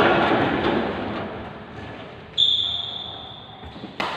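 Badminton play in a large echoing hall. A noisy burst at the start fades away; a sudden high ringing tone comes about two and a half seconds in and dies away over a second or so; and a racket strikes the shuttlecock with a sharp crack near the end.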